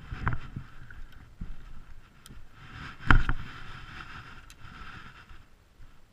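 Knocks and handling noise aboard a fishing boat: two heavy thumps, the louder about three seconds in, and a few sharp ticks over a faint steady whir.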